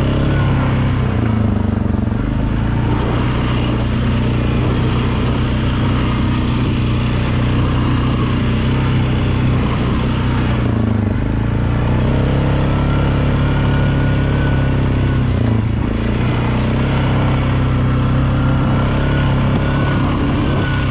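ATV engine running steadily while riding along a dirt trail, its note dipping briefly about three times as the throttle eases off and picks up again, with a steady rushing noise above it.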